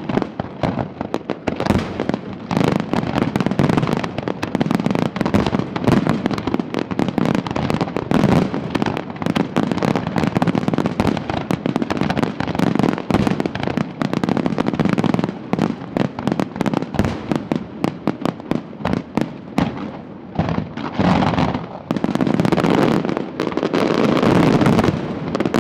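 Fireworks display: a dense, continuous barrage of bangs and crackling from shells bursting overhead, easing briefly about twenty seconds in and then building again.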